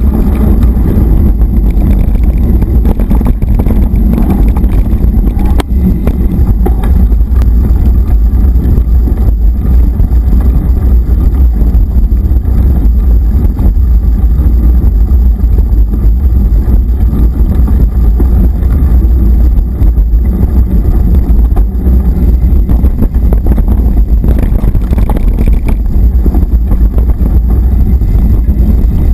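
Steady, loud wind rumble on the microphone of an action camera riding on a mountain bike, mixed with the rumble and small knocks of the bike rolling over a dirt and gravel trail.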